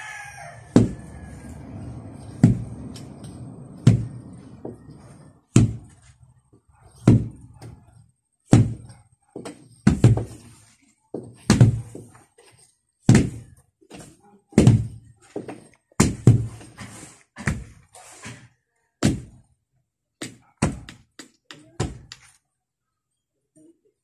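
Wooden hand tampers pounding the loose soil floor to compact it. Dull thuds come about every one and a half seconds, with lighter thuds in between, and stop about two seconds before the end.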